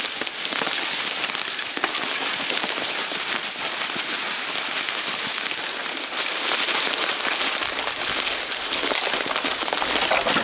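Mountain bike tyres rolling over dry fallen leaves and twigs: a steady, dense crackle and rustle, with a brief high squeak about four seconds in.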